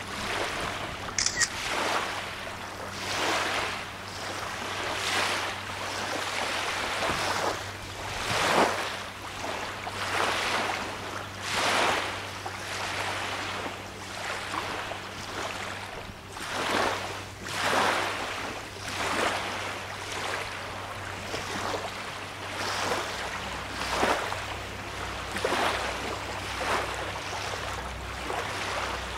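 Small lake waves lapping at the shore, a soft wash every second or two, over a faint steady low hum.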